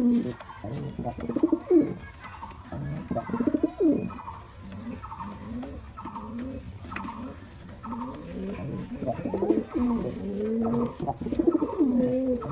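Male domestic pigeon cooing repeatedly, a run of low rolling coos one after another.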